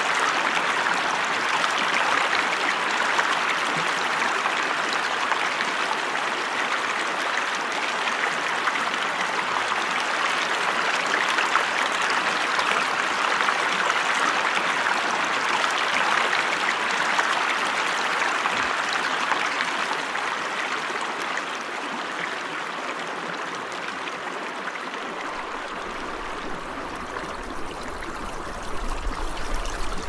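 Shallow rocky creek running over stones in small rapids: a steady rush and splash of water. It eases a little in the second half, then grows louder and rougher, with a low rumble, near the end.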